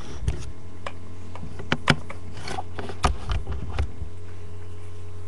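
About eight light, sharp clicks and knocks scattered over the first four seconds, the loudest near two seconds in, over a steady low hum.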